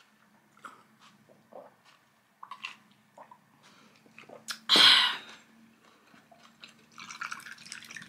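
Small gulping and mouth clicks while drinking from a glass. About five seconds in comes a short, loud breath out. Near the end, sparkling water is poured from a can into the glass and fizzes.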